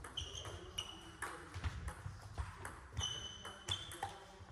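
Table tennis rally: the ball clicking back and forth off bats and table, many sharp hits. There are a few short high squeaks in between.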